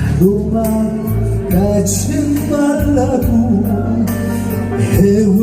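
A Korean ballad played over a backing track, with a steady bass and beat under a melody sung in long, sliding notes.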